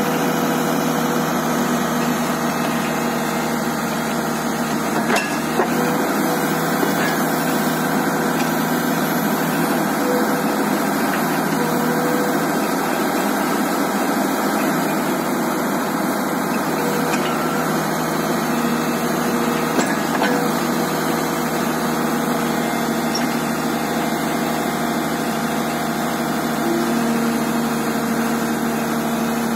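Tata Hitachi EX110 excavator's diesel engine running steadily under load with a constant hum as the machine pushes itself up onto a trailer with its bucket and tracks. A couple of short knocks sound about five seconds in and again around twenty seconds.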